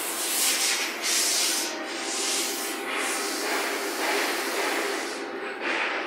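CNC lathe turning a long metal shaft, running with a steady machine hum under a loud hiss that swells and fades every second or so.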